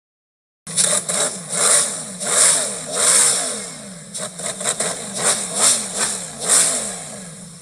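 Bugatti Tourbillon's V16 engine being revved in a series of throttle blips, starting about half a second in: each rises and falls in pitch, a few long swells followed by a run of quick short stabs, then it settles back toward idle near the end.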